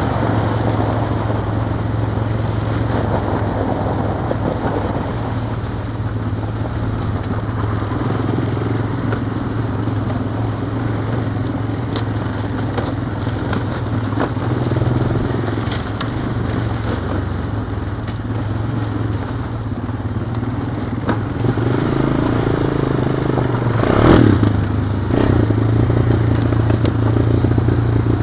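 Honda Recon ATV's single-cylinder engine running steadily as it rides a rough trail, with rattling and clatter from the machine and the ground. A single sharp knock near the end is the loudest sound.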